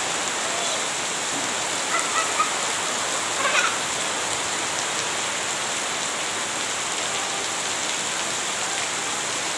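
Heavy rain pouring steadily onto a lawn and a puddled dirt yard: a dense, even hiss. A few brief, faint higher sounds break through about two seconds in and again about three and a half seconds in.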